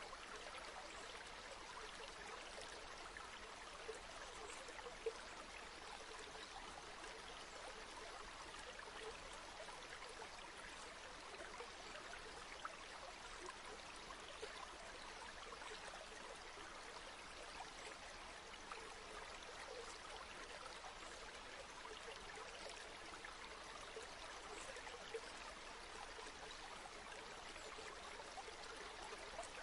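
River water flowing steadily over rocks, a continuous soft rush with small splashes and gurgles scattered through it.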